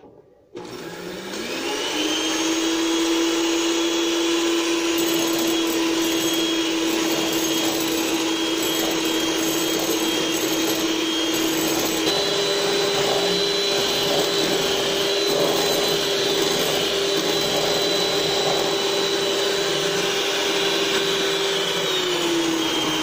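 Electric hand mixer beating eggs as sugar is added. Its motor starts up with a rising whine and settles at a steady pitch. It steps up to a higher speed about halfway through, and the pitch drops near the end.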